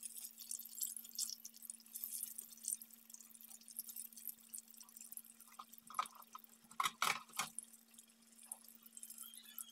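Spring rolls deep-frying in a pan of hot oil, a continuous crackling sizzle. Metal tongs knock against the pan a few times a little past the middle. A steady low hum runs underneath.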